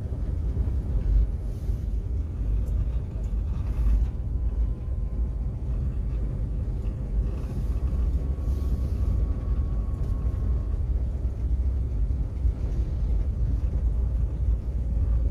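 Steady low rumble of a vehicle on the move, road and engine noise, with a faint thin whine through the middle.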